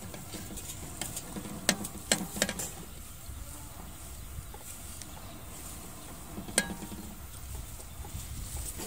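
Metal utensils clinking against aluminium cookware: a quick cluster of four sharp clinks about two seconds in and one more, with a short ring, near seven seconds, as a ladle stirs a pot of broth and a tray is handled.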